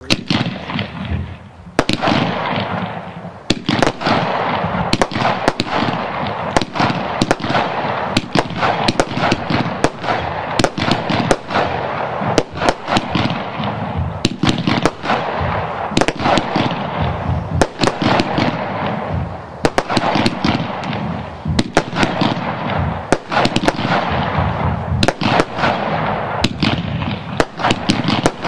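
Cosmic NG 'Golden Brocade' 49-shot firework cake firing: dozens of sharp reports, often two or three a second, over a continuous rushing noise, starting in earnest about two seconds in.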